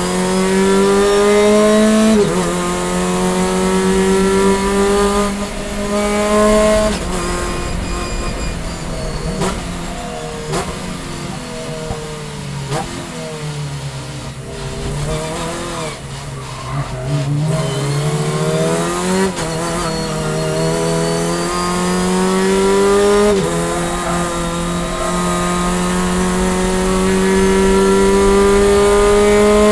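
In-car sound of a VW Fun Cup race car's engine under hard acceleration, climbing in pitch with sharp drops at upshifts about two and seven seconds in. Midway the revs fall and waver through braking and downshifts for a slow corner, then it pulls hard again, with upshifts about 19 and 23 seconds in and a long final climb in revs.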